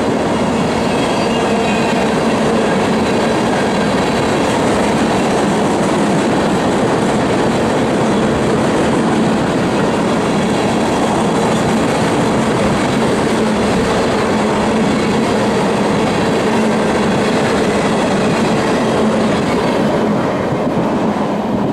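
Steel wheels of ethanol tank cars on a long freight train rolling steadily past on the rails, a continuous loud rumble that eases a little near the end.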